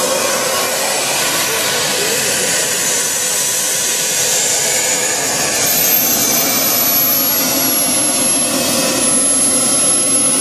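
Twin model jet turbine engines of a large RC SR-71 model running at low power as it taxis: a loud, steady rushing hiss with a high-pitched whine that slowly sinks in pitch.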